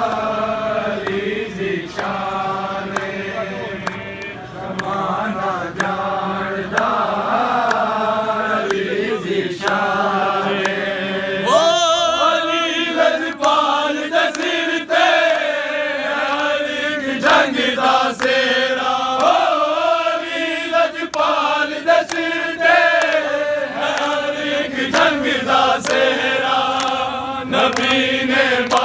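A group of men chanting a devotional manqabat in praise of Imam Ali together, led by a singer, with sharp hits keeping time. The voices grow louder and brighter about twelve seconds in.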